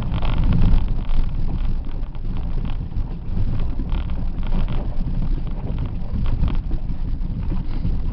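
Vehicle engine running at low speed as it crawls over a rocky dirt track, heard from inside the cab: a steady low rumble with irregular knocks and rattles from the body and tyres on stones.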